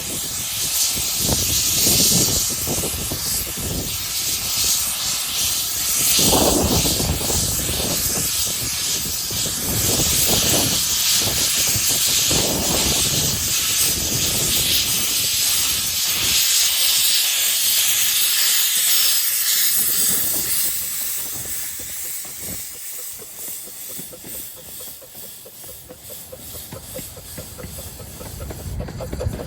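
15-inch gauge steam locomotive working, with a loud steady hiss of steam and uneven exhaust chuffs. It fades away after about twenty seconds.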